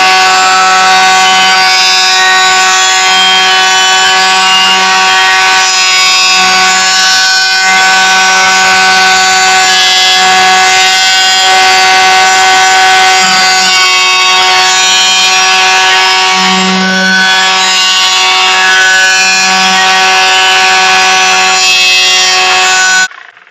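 Electric woodworking power tool running at a steady speed, a loud constant whine with several pitches over a low hum. It cuts off abruptly near the end.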